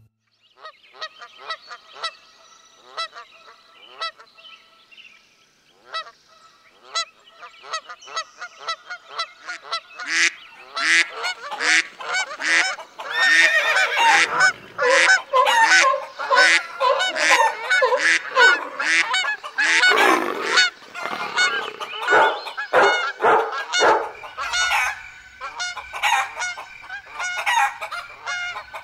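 Geese honking: many short repeated calls, sparse and fainter at first, then a dense, overlapping, louder chorus from about a third of the way in.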